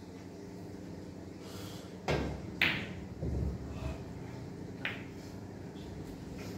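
Pool balls knocking on a billiard table: a sharp click about two and a half seconds in, low knocks just after it, and another click near five seconds, over a steady background hum.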